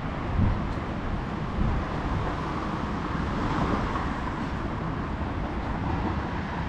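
Steady city street traffic noise from cars on the road, with a low rumble and a couple of brief louder swells in the first two seconds.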